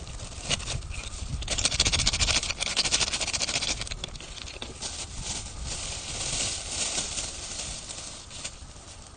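Thin plastic bag crinkling and rustling as it is handled, in quick crackling bursts that are loudest between about one and a half and four seconds in, with a second burst a little past halfway.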